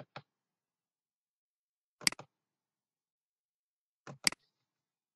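Computer mouse clicking: a faint pair of clicks at the start, then two sharp double clicks about two seconds apart.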